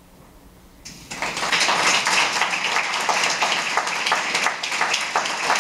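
Audience applauding, starting abruptly about a second in after a brief hush: many hands clapping at once.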